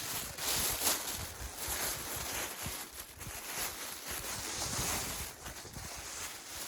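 Strong blizzard wind blowing in gusts, swelling and easing every second or two, with wind buffeting the microphone.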